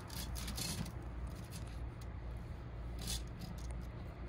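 Scratchy rustling of a cat's fur rubbing against a rough concrete path as it rolls about on its back, in a burst during the first second and another about three seconds in, over a low steady rumble.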